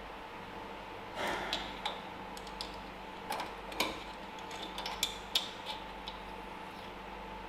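A string of light metallic clicks and scrapes from hand tools and small engine parts being handled, over a faint steady hum.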